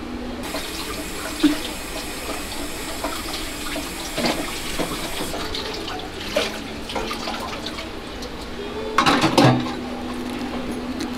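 Water running steadily from a tap into a sink, with a few sharp knocks and clatters; the loudest cluster of knocks comes about nine seconds in.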